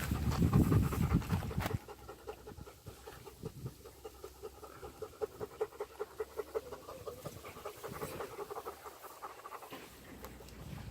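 Dog panting in quick, even breaths, about three or four a second. A loud low rumble of wind or mic handling fills the first two seconds.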